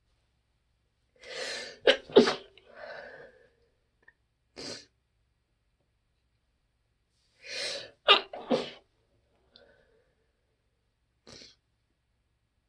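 Muffled allergy sneezes in two bouts about six seconds apart. Each bout is a breathy build-up and then two sharp stifled sneezes in quick succession, the first bout about two seconds in and the second about eight seconds in, with short breaths or sniffs between.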